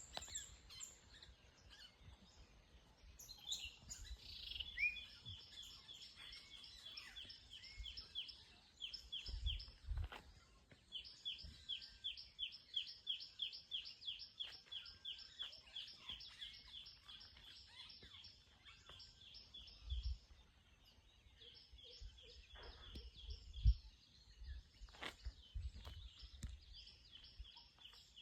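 A bird chirping in long runs of quick, evenly repeated high notes, several a second, pausing briefly twice before starting again. A few low thumps sound beneath it, the loudest a little before the last run ends.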